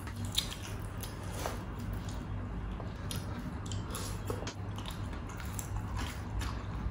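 Close-up eating sounds: biting and chewing crispy pata (deep-fried pork leg) and tearing the meat and skin by hand, heard as scattered short crackles and clicks over a low steady hum.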